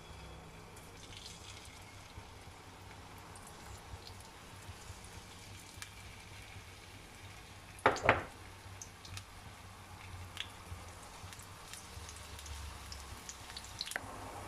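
Hot oil in a small nonstick frying pan sizzling softly with scattered little pops as sliced pieces are laid into it, with one sharp clatter about eight seconds in.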